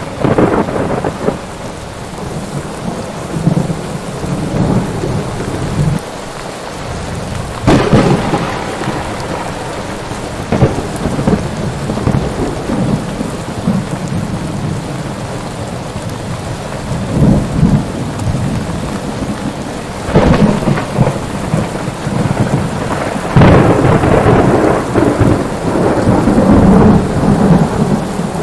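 Steady rain with thunder: several sudden claps and rumbles, the longest rolling on through the last few seconds.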